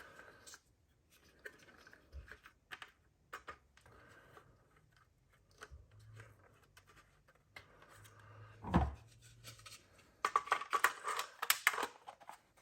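Plastic parts of a Fluke 87 multimeter being handled and fitted back into the case: scattered small clicks and scrapes, a dull knock about nine seconds in, then a quick run of clicks and rubbing near the end.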